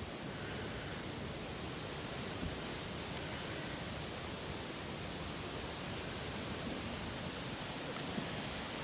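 Steady rushing hiss of strong wind, with no distinct events.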